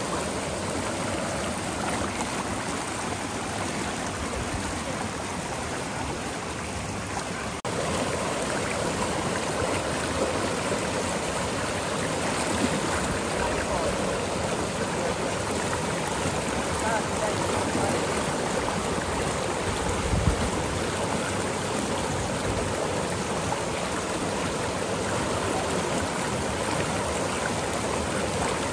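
Steady rushing of flowing river water, a little louder from about eight seconds in.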